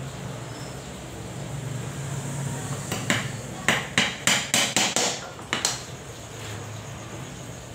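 Hammer striking a small wooden workpiece, a quick run of about ten blows starting about three seconds in and stopping near the middle.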